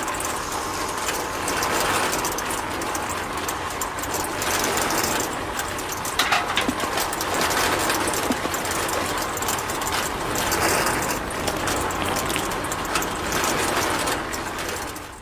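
Small geared electric motor of a miniature home-made concrete mixer running steadily, a rattling whir with fine rapid clicking of the gears.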